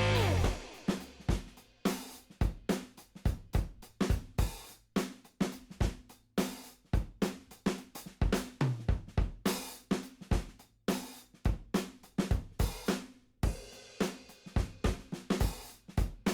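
Background music: a drum-kit beat with snare, hi-hat and cymbal hits.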